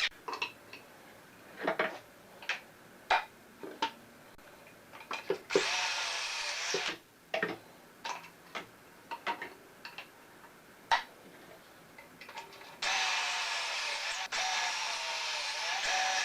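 Power drill running into wood: one run of about a second and a half, then a longer steady run starting near the end. Scattered knocks and clatter of wooden boards being handled in between.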